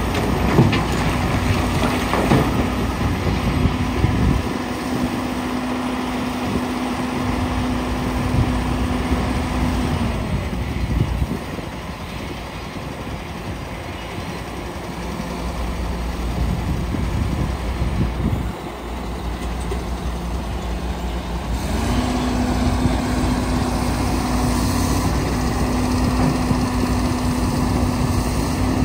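Komatsu PC450LC hydraulic excavator's diesel engine running under load while it dumps broken rock into a steel dump-truck bed, the rock clattering in during the first few seconds. The engine note drops about ten seconds in and climbs back up about twenty-two seconds in.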